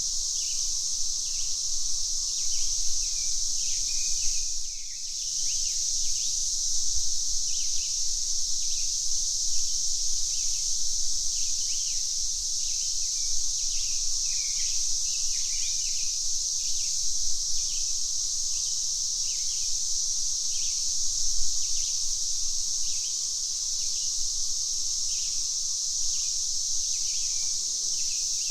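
Cicadas buzzing in a steady high drone that dips briefly about five seconds in, with a bird repeating short chirps throughout.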